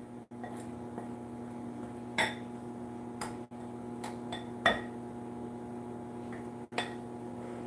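A spoon clinking against a glass mixing bowl about four times while stirring hot water into cornmeal for hot water cornbread, over a steady low hum.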